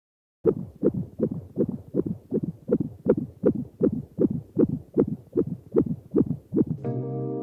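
Fetal Doppler's speaker playing a fetal heartbeat: rapid, evenly spaced whooshing pulses, a little under three a second. A steady, gong-like musical tone takes over near the end.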